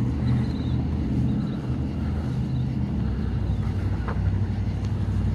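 Diesel truck engine idling with a steady low hum.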